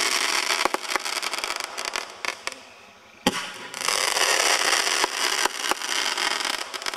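Fireworks going off: a long burst of dense crackling with scattered pops that fades out, then a sharp bang about three seconds in that sets off a second long burst of crackling.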